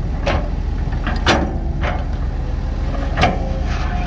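Heavy diesel machinery running steadily, with a short clank about every half second to second over the engine drone.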